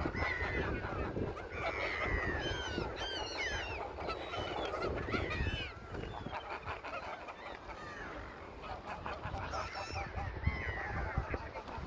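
Geese honking repeatedly, several calls overlapping, each one falling in pitch, over a steady low rumble.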